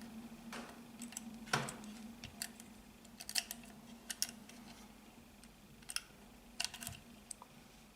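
Scattered small clicks and taps of pistol parts being handled as the trigger and trigger bar are worked out of an S&W M&P frame, irregular and sparse, the loudest about a second and a half in, over a faint steady hum.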